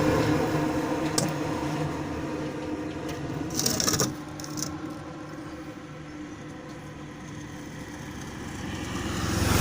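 A motor vehicle's engine fading away, with a short scraping rustle about four seconds in, then another engine growing louder near the end.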